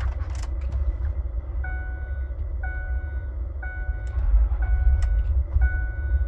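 2005 Ford F150 engine running unevenly just after restarting on a fresh fill-up, shortly before it stalls: the after-refuelling stalling symptom the owner traces to a faulty EVAP vapor canister purge valve. From about a second and a half in, a dashboard warning chime sounds about once a second.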